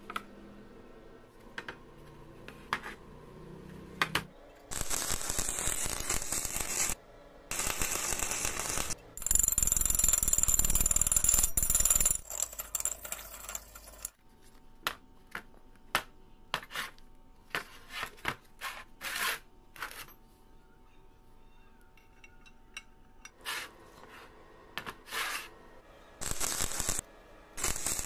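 Metalworking sounds: three loud stretches of steady, noisy machine sound a few seconds each, then a run of scattered sharp metal clicks and knocks, and another noisy stretch near the end.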